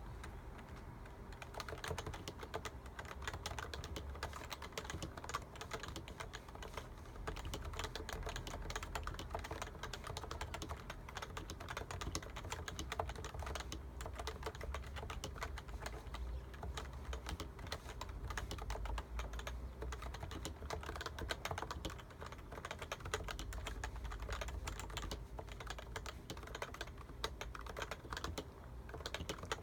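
Topre Realforce keyboard typed on continuously at a fast, steady pace, a dense stream of keystrokes from its Topre electro-capacitive switches.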